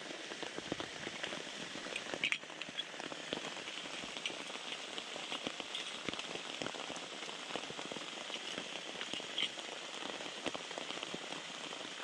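Steady rain falling, a continuous hiss dotted with the ticks of many drops landing close by.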